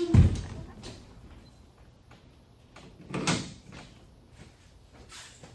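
Hard-shell rooftop tent being popped open: a heavy thump just at the start, then a second, softer clunk about three seconds in.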